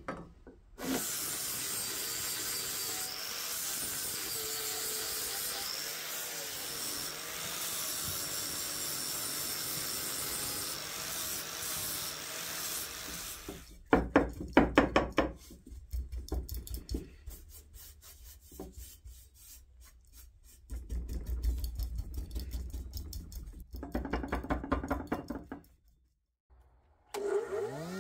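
A sharp knock, then a long steady abrasive rubbing noise on the steel bench bar. Then paintbrush strokes on flat steel bars come in two bouts of rhythmic swishes, and near the end an electric jointer-planer's motor starts up, its pitch rising to a steady run.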